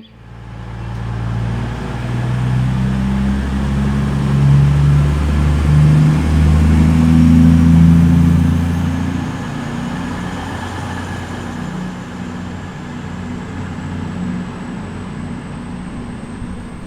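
Passenger train pulling away and gathering speed, heard from on board. A low hum climbs in steps under a faint high whine that slowly rises; it is loudest about halfway through, then settles to a steadier run.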